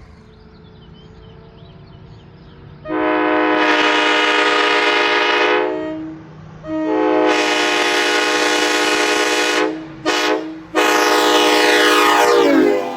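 Nathan Airchime M5 five-chime locomotive air horn sounding its chord in four blasts: two long, one very short, and a last long one whose pitch sags just before it cuts off.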